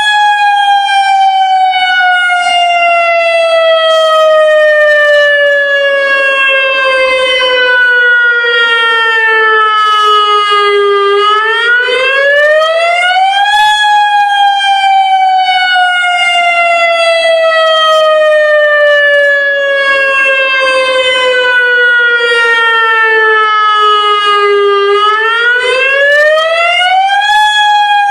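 Federal Signal Modulator lahar warning siren sounding its monthly test signal, loud. Its pitch falls slowly for about eleven seconds and then sweeps quickly back up, twice in a row.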